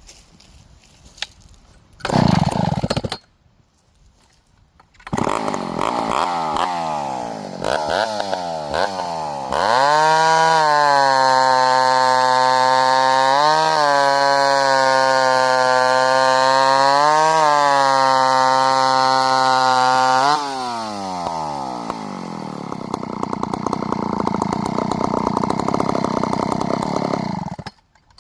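McCulloch 550 two-stroke chainsaw fires briefly and dies, then starts and runs with a few blips of the throttle. It is held at full throttle for about ten seconds, with two brief rises in pitch, then drops back to idle and shuts off near the end.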